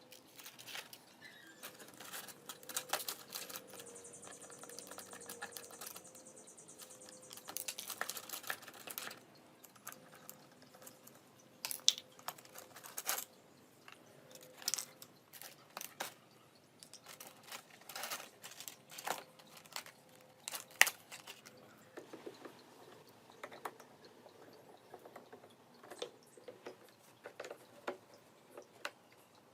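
Scattered clicks, taps and rattles of hand work on small parts, with a fast, high ticking for about four seconds starting around four seconds in.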